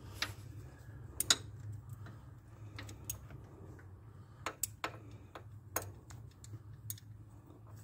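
Scattered light metallic clicks and taps, irregularly spaced, from hand tools and a harmonic balancer puller being fitted to an engine's crank pulley, over a steady low hum.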